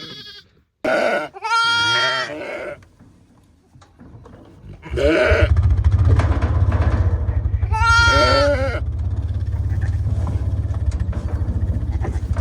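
Sheep bleating, about four calls. About five seconds in, a quad bike engine starts running with a steady, pulsing low drone that becomes the loudest sound.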